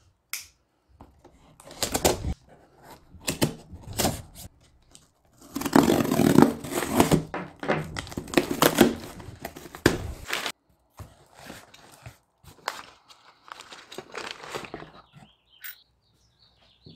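A cardboard box being unpacked by hand: packing tape ripped off, cardboard and packing rustled and torn, and parts set down on a wooden table with knocks. The loudest, longest tearing and rustling comes around the middle.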